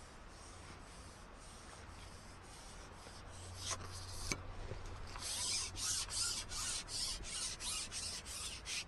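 Strong wind buffeting and rubbing on the microphone: a rasping hiss that pulses several times a second and grows much louder about five seconds in.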